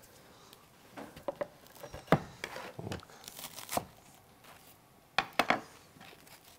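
A knife cutting through the crisp toasted bread of a grilled cheese sandwich on a wooden cutting board: irregular crunching and crackling, with sharp clicks about two seconds in and again about five seconds in.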